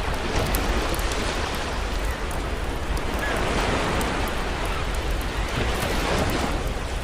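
Sea waves washing onto the shore, swelling in about three surges, with the small sharp crackles of a campfire scattered through them.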